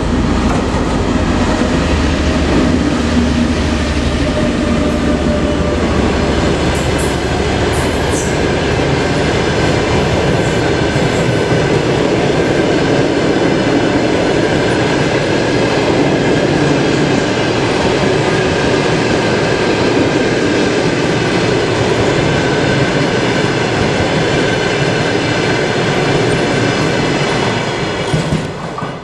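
TEP70BS diesel passenger locomotive passing at close range with its engine running, followed by a long train of passenger coaches rolling steadily past on the rails. The noise falls away near the end as the last coach goes by.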